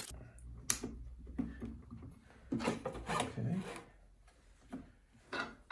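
Hands turning and locking the keyless chuck of a Bosch PBD 40 drill press on a 120 mm bimetal hole saw: a sharp click under a second in, then spells of rubbing and scraping handling noise.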